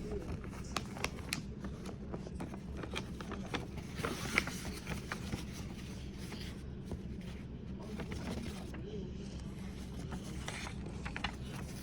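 Handling noise: scattered small clicks, scrapes and rustles, as of objects being picked up and moved about, over a steady low hum.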